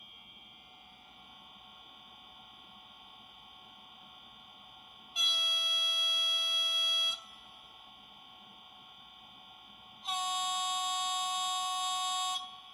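DCC sound decoder of an HO-scale E484 electric locomotive model sounding its signal horn twice through a small speaker: two steady blasts of about two seconds each, about five seconds apart, the second a little higher in pitch. Between them a faint steady whine of the locomotive's standing sound carries on.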